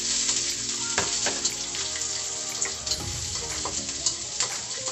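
Food sizzling and frying in a steel wok, loudest right at the start as sliced vegetables are tipped in, with a spatula stirring and clacking sharply against the metal several times.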